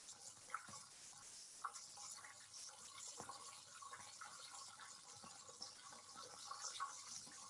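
Flour-coated buttermilk chicken thighs frying in a pan of hot oil: a faint steady sizzle with scattered crackles and pops.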